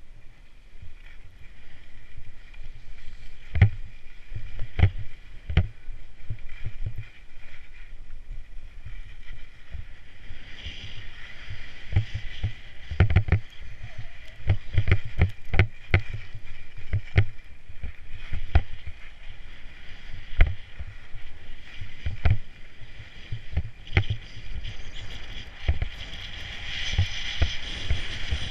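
Skis scraping and hissing over packed snow during a downhill run, with frequent sharp knocks and thumps. The hiss swells louder a little past a third of the way through and again near the end.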